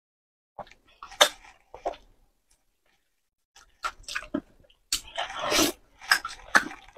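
Slurping and sucking in wide, slippery potato-starch noodles, with wet mouth and chewing sounds. A few short slurps come first, then a pause, then a run of louder, longer slurps from about five seconds in.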